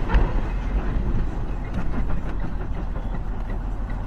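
Steady road noise with a low rumble from a car driving at highway speed.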